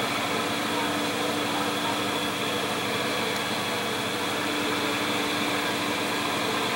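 A steady hum with a few constant tones over a background hiss, unchanging throughout, like a machine running.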